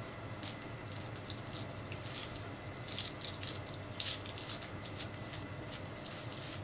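A metal spoon scooping the flesh out of a halved orange, with irregular wet squelches and scrapes as the pulp tears away from the peel.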